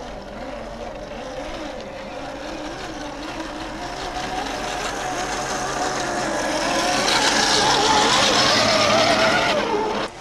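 Electric motor and gears of a radio-controlled scale Land Rover Defender crawler whining, rising and falling in pitch with the throttle. It grows louder as the truck climbs toward the microphone, then cuts off suddenly near the end.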